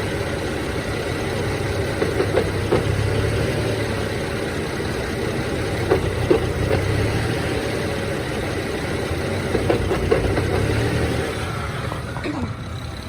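BMW E90 engine idling roughly, with an intermittent clacking: sharp knocks, mostly in pairs, a few seconds apart. The clack comes only with the clutch pedal released; others have suggested a throwout bearing, but the owner doubts it and links it to the car's misfires.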